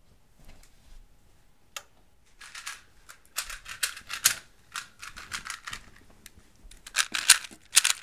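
Plastic 3x3 Rubik's cube being scrambled: quick runs of layer turns, clicking and rasping in bursts. They start about two seconds in and are loudest near the end.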